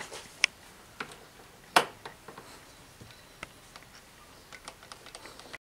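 Scattered light clicks and knocks of handling, with two sharper knocks about half a second and just under two seconds in; no engine is running. The sound cuts off suddenly near the end.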